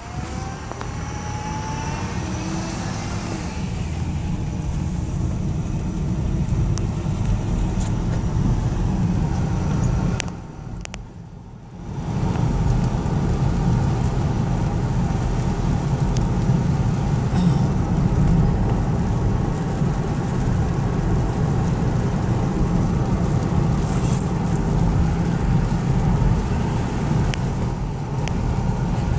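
Car driving, steady engine and road noise heard from inside the cabin. Over the first few seconds the engine pitch rises as it accelerates, and the noise drops away briefly about ten seconds in.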